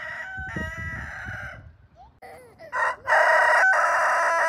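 A rooster crowing twice. The first crow is moderate, and the second, starting about three seconds in, is much louder and longer.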